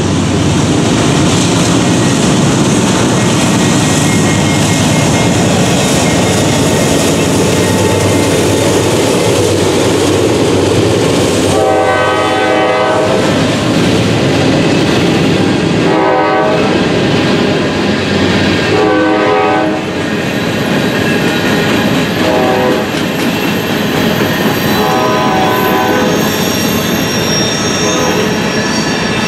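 Freight train passing at close range: the locomotive's diesel engines first, then covered hopper cars rolling by with wheels clattering over the rail joints. Short high tonal sounds ring out about twelve, sixteen and nineteen seconds in, and again near the end.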